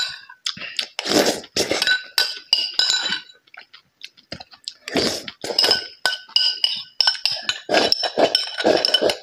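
Metal spoon clinking and scraping against a ceramic rice bowl in quick, irregular strikes, each leaving the bowl ringing briefly. Chewing and mouth noises come between the clinks as rice is shovelled in. The clinking grows busier near the end, as the bowl is tipped to the mouth.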